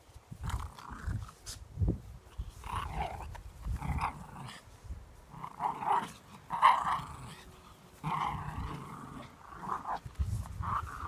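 Pet dog growling in a series of short, irregular bursts, with low knocking and scuffling sounds underneath.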